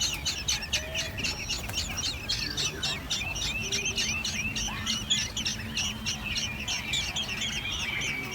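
A brood of nestling birds giving high, rapid chirping calls, several a second without pause, typical of chicks begging in the nest.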